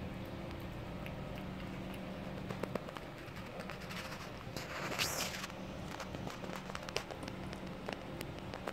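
A cat eating wet canned food: faint, irregular chewing clicks and smacks over a steady low hum. About five seconds in there is a brief rush of noise.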